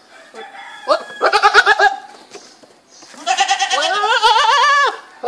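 Goat bleating twice: a short quavering bleat about a second in, then a longer quavering bleat that drops in pitch as it ends.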